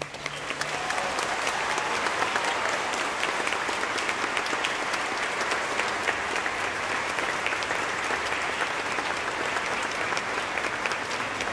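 Audience applauding steadily at the end of an orchestral piece, with the orchestra's last low note dying away in the first second.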